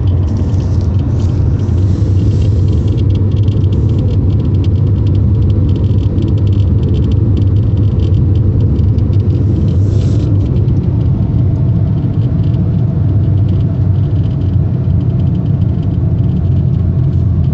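Steady road and engine rumble inside a moving 2002 VW Golf Mk4, with an irregular, rapid crackling tick over it like a Geiger counter. The owner places the tick under or inside the steering wheel.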